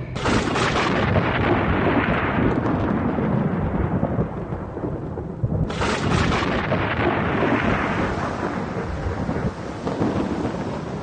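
Two claps of thunder, one at the start and another about six seconds in, each a sudden crack that rolls away into a long rumble, over steady rain.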